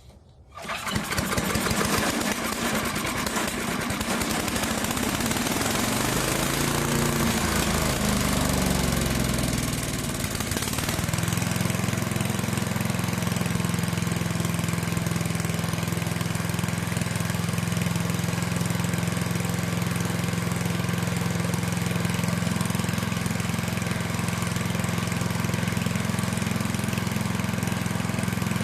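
The old Craftsman chipper shredder's small gas engine starts up right at the beginning and runs. Its speed rises and falls unevenly for a few seconds, then settles into a steady run.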